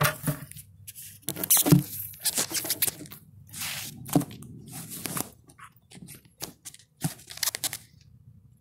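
Handling noise from the camera being held and positioned: fingers rubbing and scraping over the device near its microphone, with irregular bumps and knocks. It goes quieter near the end.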